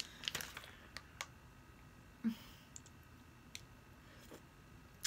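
Quiet wet mouth sounds: a few scattered lip smacks and clicks as melted coconut popsicle is licked off the fingers.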